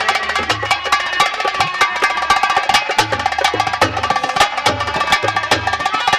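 Instrumental interlude of Haryanvi ragni folk music: rapid drum beats over a sustained reedy melody and a pulsing low bass line.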